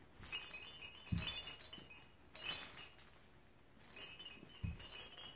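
Baby activity-gym toys jingling and rattling in short bursts as a baby kicks on the play mat, with rustling of the mat and two soft thumps of feet landing, about a second in and near the end.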